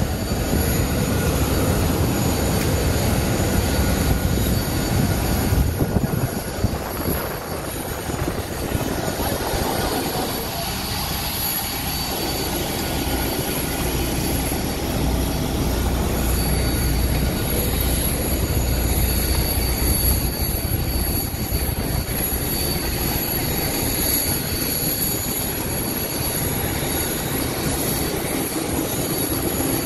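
Steady rushing hum of ventilation inside an Airbus A320 cabin, with a faint high whine, while the aircraft stands with its engines not yet started.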